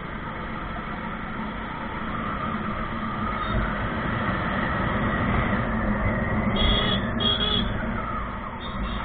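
Motorcycle engine running at low speed with road and wind noise, picked up by a camera on a moving bike in street traffic. It grows louder over the first few seconds, and two short high-pitched sounds come about seven seconds in.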